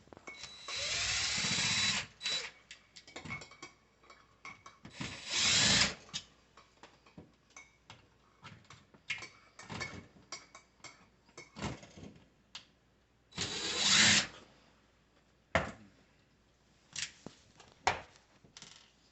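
Power drill-driver spinning in three short bursts of about a second each, backing out the screws that hold a dishwasher's drain pump, with scattered clicks and knocks between the bursts.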